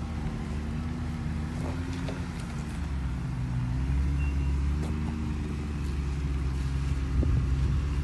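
Jeep Wrangler's engine running at low revs as it crawls down a rocky trail, with a few short knocks of tyres and chassis on stone. It grows somewhat louder toward the end as the Jeep comes closer.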